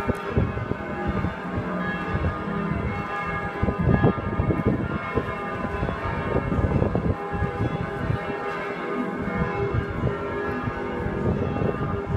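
Several large church bells ringing together in a full peal, their strokes overlapping irregularly over a dense layer of sustained, humming bell tones. Loud and continuous.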